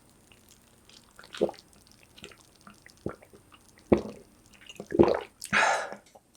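Utensils working through creamy tteokbokki sauce: a few short, separate wet clicks and squelches, then a longer wet rustle near the end.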